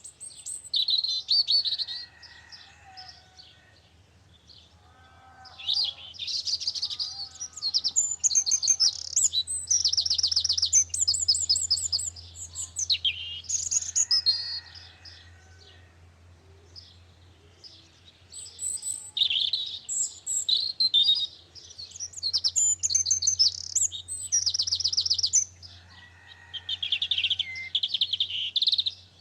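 A songbird singing loud, high-pitched phrases of rapid trills and chattering notes. Each phrase lasts a few seconds, with short pauses between them.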